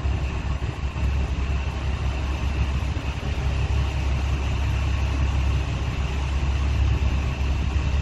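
Fishing boat's engine running steadily, a constant low hum with no change in speed.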